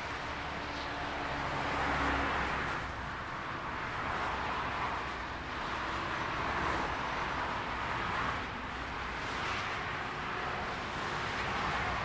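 Steady multi-lane motorway traffic: cars, vans and trucks passing in both directions, a continuous rush of tyre and engine noise that swells and fades every couple of seconds as individual vehicles go by.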